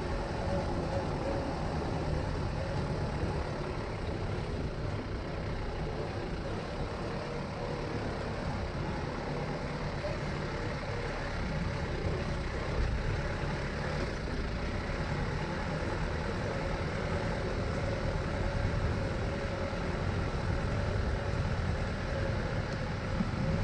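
Motor vehicle running steadily along a stony dirt track, a constant engine hum over road rumble.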